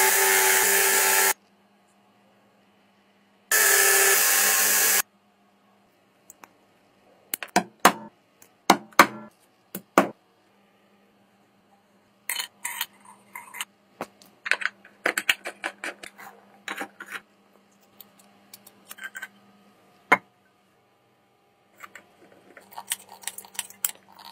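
A bench buffing wheel spinning, heard twice for a second or so with a gap of silence between. After that come scattered small metal clicks and taps as the parts of a small oil can are handled and screwed together.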